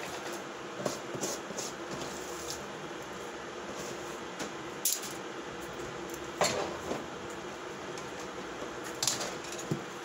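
Scattered clinks and knocks of kitchen utensils against pots and dishes, about ten in all, irregularly spaced, the loudest about six and a half seconds in.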